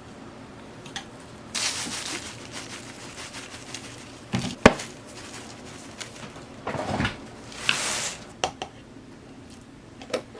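Kitchen food-prep handling sounds: dishes and utensils set down and moved, with scattered clicks and knocks, one sharp clink about halfway through, and two brief swishes.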